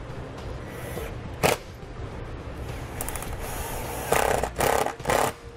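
Cordless driver running in short bursts as it drives screws back into a plastic wiring cover: one brief burst about a second and a half in, then three in quick succession near the end.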